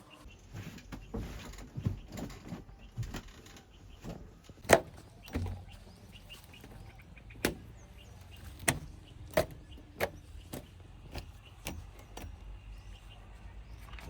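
JCB 3DX backhoe loader at work, with a low engine rumble under a series of sharp knocks and clanks. The loudest knock comes about a third of the way in, and several more follow at irregular intervals.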